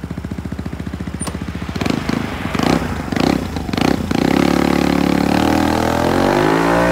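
Yamaha Cygnus X 125 scooter's single-cylinder four-stroke engine, breathing through an aftermarket bullet muffler with its baffle in, idling with an even pulsing beat. About two seconds in it is blipped four times, then it pulls away with a steady engine note that rises as the scooter accelerates.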